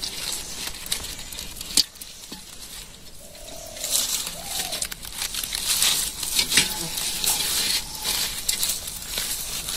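Rustling and crinkling of a wet blue plastic net and water weeds being sorted by hand, with scattered clicks; the crackling gets louder about four seconds in.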